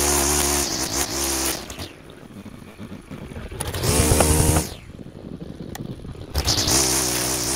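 A small engine running loud three times, dropping much quieter in between.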